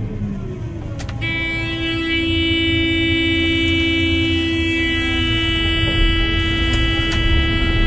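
Combine harvester being wound up to working speed: a low engine rumble, then from about a second in a loud, steady high tone that holds without changing.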